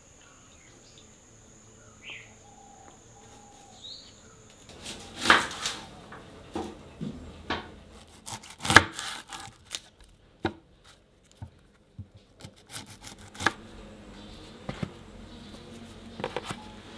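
Kitchen knife cutting through whole garlic bulbs on a wooden chopping board. A string of sharp knocks and crunches as the blade goes through and hits the board, loudest about five and nine seconds in, with lighter ones after.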